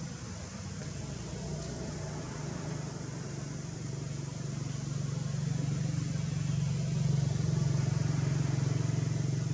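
A motor vehicle's engine running with a steady low hum, growing louder over the second half.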